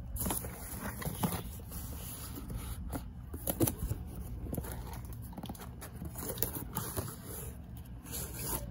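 Cardboard shipping box handled and opened by hand: irregular scraping and rustling of cardboard and clear tape, with a few sharper clicks and crinkles about three seconds in.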